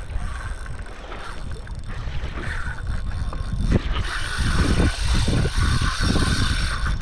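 Fishing reel being wound in: a steady mechanical whir that builds from about the middle, over low wind rumble on the microphone.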